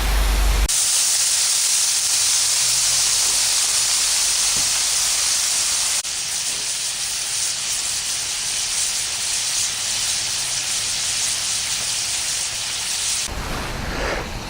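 Chicken, broccoli and sauce sizzling on a Blackstone flat-top griddle: a steady high hiss that starts abruptly about a second in, drops slightly halfway through, and cuts off about a second before the end.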